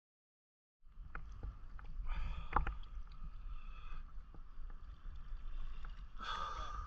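Water sloshing and lapping around a camera held at the surface, half in the water, with a few sharp splashes. It starts suddenly about a second in.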